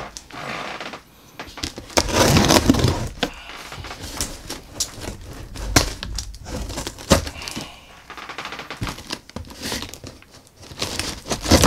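Cardboard shipping box being opened by hand: cardboard and packing tape tearing, scraping and crinkling in irregular bursts, with a few sharp knocks.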